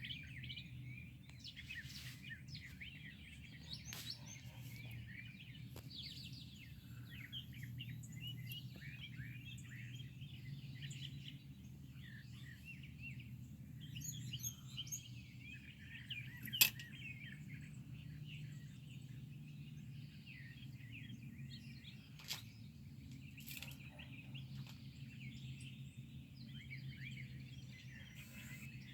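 Many small birds chirping and twittering together in an early-morning chorus, over a steady low hum. A couple of sharp clicks cut through, the loudest about 17 seconds in.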